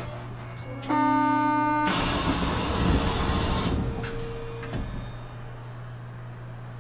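Osaka Metro 200-series New Tram car standing at a station: a one-second electronic door chime, then the doors sliding open with a click and a rush of noise that fades over about two seconds, over a steady low electrical hum.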